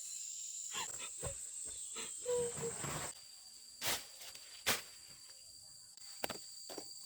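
Insects trilling steadily at a high pitch, which drops to a lower note about three seconds in, with scattered rustles and clicks and two short noisy bursts near the middle.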